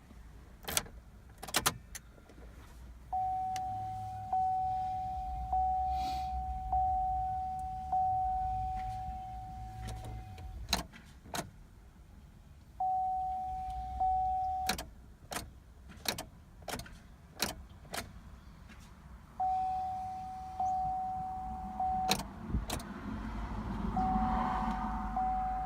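Warning chime in a 2007 Chevrolet Cobalt dinging in repeated runs, a steady tone with each ding fading before the next, mixed with sharp clicks as the key is tried. No starter or engine is heard: the car does not crank, a no-crank fault traced to a failed run/crank fuse.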